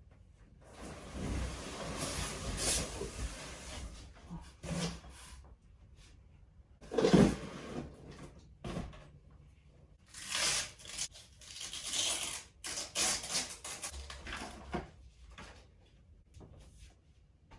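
Bike packaging being handled and unwrapped: irregular rustling and tearing of wrapping with scrapes and rubbing, and one loud knock about seven seconds in.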